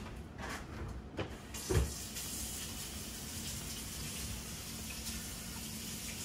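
Kitchen tap running into a sink, a steady hiss of water starting about a second and a half in, after a couple of knocks and a low thump.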